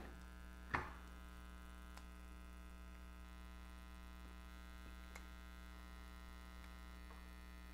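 Steady low electrical mains hum, with one short click about a second in and a couple of faint ticks later.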